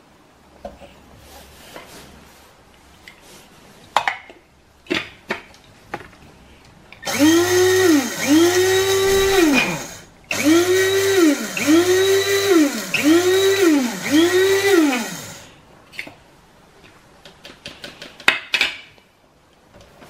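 Electric blade coffee grinder run in about six short pulses, regrinding coffee. Its motor whines up and drops back in pitch with each press. A few sharp clicks come a few seconds before the grinding starts.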